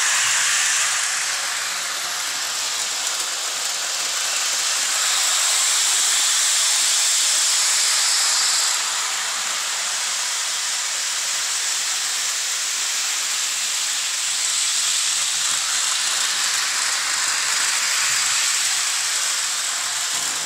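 Bachmann HO-scale model train running at full speed around its track: a steady, high hissing whir of small wheels and electric motor on the rails. It grows louder for a few seconds midway and then drops back suddenly.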